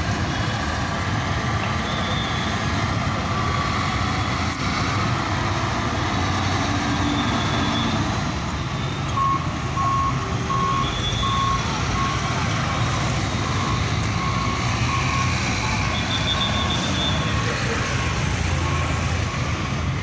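Diesel engine of a ground-levelling construction machine running steadily amid traffic, with a reversing alarm beeping at an even pace from about halfway through.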